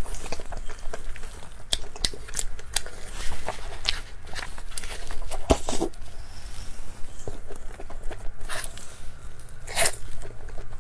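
Close-miked eating sounds of a giant cream-filled snow-skin mochi (xuemeiniang): wet smacks, mouth clicks and the chewy skin tearing as it is bitten and chewed, with a few louder smacks in the second half.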